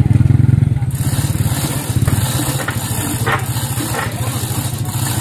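An engine idling steadily with a fast, even low pulse. A few faint knocks come through about halfway in.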